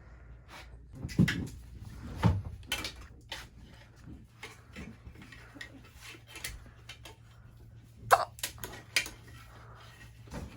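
Scattered knocks, clatters and rustling from people handling things in a small room, the loudest thumps about a second and two seconds in and another near the end, over a low steady hum.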